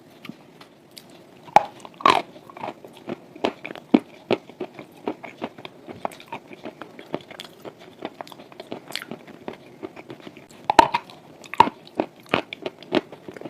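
Close-up biting and chewing of dry chalk with clay paste: sharp, irregular crunches, with a few louder bites near the start and again about eleven seconds in.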